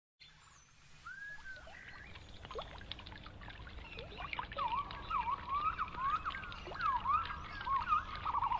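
Slowed-down nature sounds opening a music track: water trickling and bubbling, with many short chirping glides and small clicks, fading in over the first second and growing busier.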